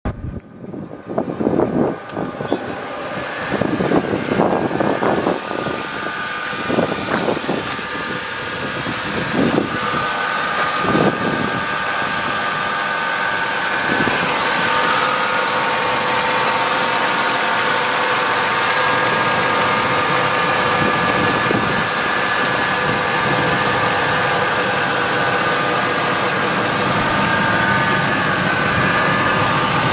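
Ford F-150 pickup's engine idling steadily under the open hood. Irregular knocks and thumps over roughly the first ten seconds, after which the idle runs on alone.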